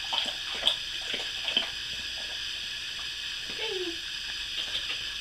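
A sleeping puppy whimpering in a dream: a few short squeaks, then one falling whimper about three and a half seconds in, over a steady background hiss.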